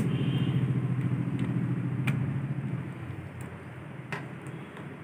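A low, steady engine-like hum that fades away about three seconds in, with a few light clicks of handling as the induction cooktop's coil is lifted out of its plastic housing and set down.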